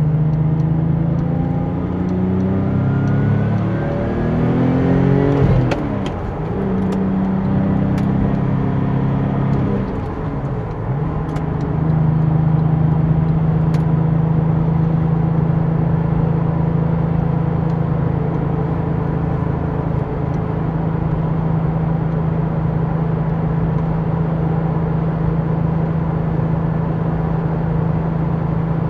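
Porsche 911 (996) Turbo's twin-turbo flat-six accelerating, the engine note rising for about five seconds before dropping at a gear change. A second, shorter pull and dip follow, then the engine settles into a steady drone at constant speed.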